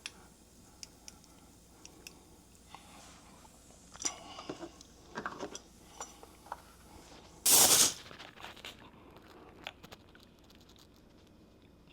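Tire plug being pushed into a punctured tire with a T-handle plug insertion tool: scattered small clicks and scrapes of the tool and rubber, with some rustling a few seconds in. About seven and a half seconds in comes one short, loud burst of noise.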